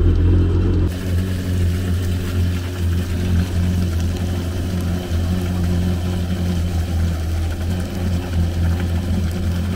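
Yamaha VX1800 HO jet ski's 1.8-litre four-cylinder four-stroke engine idling steadily out of the water, while fresh water from a hose flushes the salt water out of its cooling system. A steady hiss comes in about a second in.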